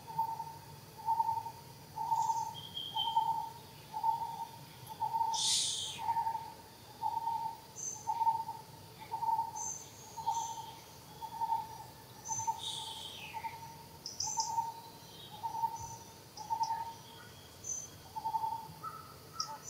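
A bird repeating a single hollow note at one steady pitch about once a second, with short high chirps from other birds over it.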